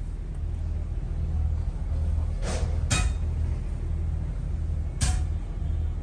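Moulding sand being tamped down by a worker's feet on a sand-casting flask: a few crunching treads and sharp knocks, about two and a half, three and five seconds in, over a steady low rumble.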